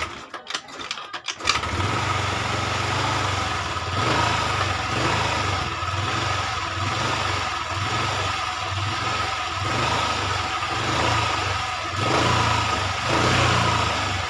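Carbureted Honda Vario 110 scooter's single-cylinder four-stroke engine kick-started: a few sharp clacks of the kick lever, then the engine catches about a second and a half in. It runs on a held-open throttle, its speed swelling and dropping, because once started it won't settle to idle on its own.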